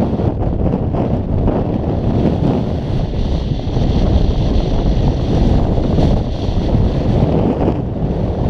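Wind buffeting the camera microphone: a loud, steady low rumble.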